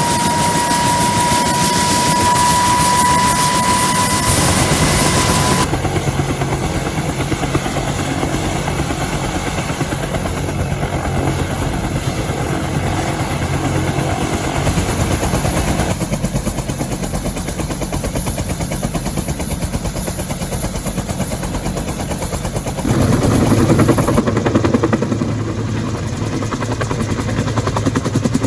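Bell 205 helicopter running, its turbine engine and rotor making a continuous heavy noise. For the first few seconds a turbine whine rises slowly in pitch, then stops abruptly. The helicopter gets louder near the end.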